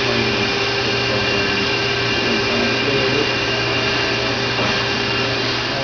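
5-axis CNC router's IBAG spindle cutting SMC fiberglass, with its dust-collection suction running: a steady hiss and whine with a low hum.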